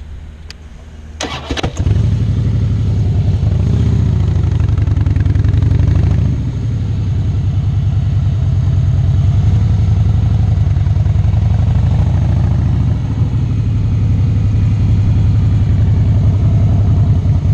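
Harley-Davidson V-twin motorcycle engine, heard from the rider's seat. It comes in loud about two seconds in, its revs rise and fall a couple of times as it pulls away, and then it runs steadily under way.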